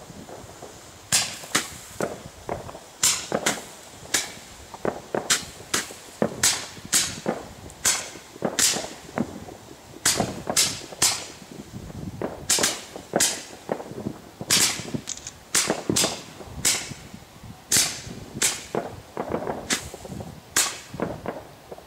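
Three Roman candles firing at once: an irregular run of sharp pops, about one to two a second, as the stars are shot out one after another.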